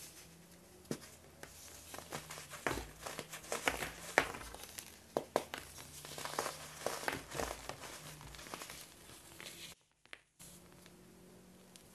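A moulded block of dyed baking soda crushed and crumbled between the fingers: dense, irregular crunching and crackling that starts about a second in and stops with a cut near the end.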